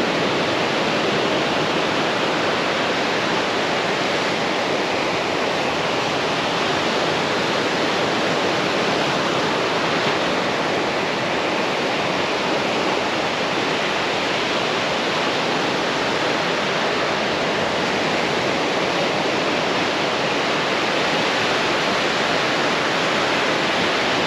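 Breaking surf: a steady, even wash of waves on the shore with no distinct events.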